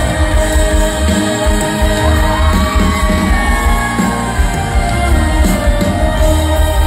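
Live band music with a singer over a concert sound system, with heavy, booming bass.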